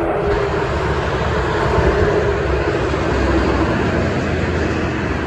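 Steady roar of dense highway traffic, cars and heavy trucks, with tyre noise and engine rumble mixed together. The low rumble grows heavier about three seconds in as trucks pass close by.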